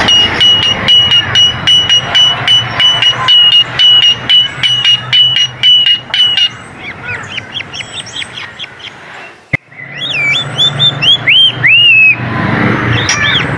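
Coleto calling: a rapid run of short, same-pitched notes for about six seconds, then a varied series of bending, arching whistled notes. A single sharp click comes about nine and a half seconds in.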